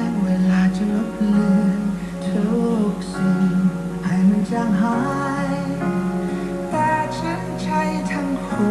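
Background music: plucked acoustic guitar with a singing voice.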